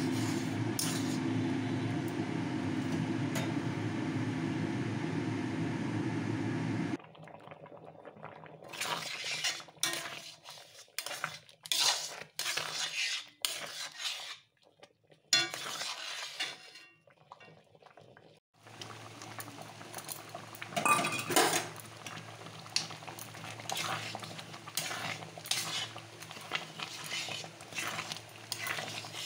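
A spoon stirring thick, bubbling oats in a cooking pan, scraping and clinking against the pan at irregular intervals. For about the first seven seconds a loud steady hum with a low tone lies over it, then stops abruptly; from about two-thirds of the way in a quieter steady hum returns under the scraping.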